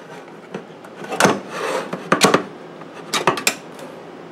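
Second metal can of condensed cream of mushroom soup being opened: a few sharp metallic clicks and a short rasping scrape about a second and a half in.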